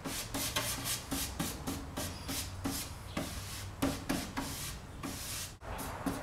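A 4-inch synthetic-bristle brush stroking white gesso back and forth over a plywood panel: a scratchy rubbing, about three strokes a second.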